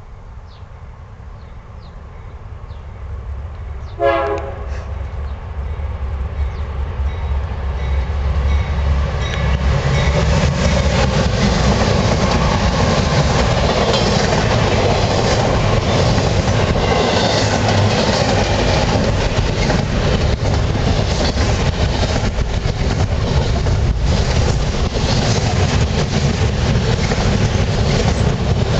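BNSF double-stack intermodal container train approaching and passing at speed. A short blast of the locomotive horn comes about four seconds in. The sound of the diesel locomotives then grows loud, giving way to the steady rush and clickety-clack of the container cars' wheels over the rail joints.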